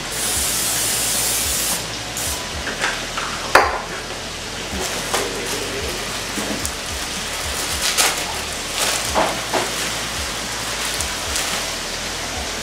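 Chicken frying in hot oil, a steady sizzle throughout. A louder hiss runs for the first couple of seconds and stops abruptly, and a few short clicks and knocks of kitchen utensils come through now and then.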